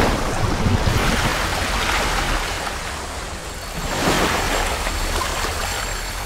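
Rushing, splashing water in two surges, one at the start and another about four seconds in, then easing off.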